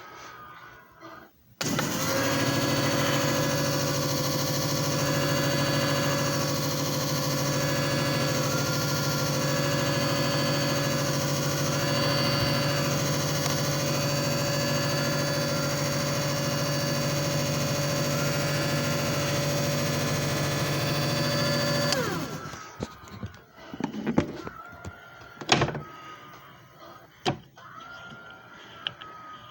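JFJ Easy Pro disc repair machine running: its motor starts abruptly, hums steadily with a high whine for about twenty seconds, then winds down with falling pitch. A few clicks and knocks follow near the end.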